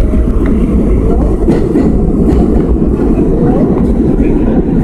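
New York City subway train running, heard from inside the car: a loud, steady rumble of wheels on rail, with a few faint clicks.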